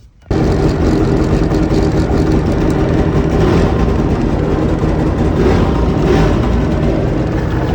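Yamaha 650 two-stroke engine of a jet ski boat running steadily, coming in suddenly just after the start, with the revs swelling and easing a few times.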